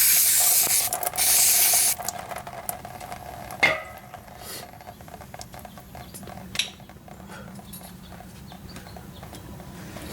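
Aerosol can of CRC brake cleaner spraying in two long hissing bursts, stopping about two seconds in. After that come a few light metallic clicks and knocks.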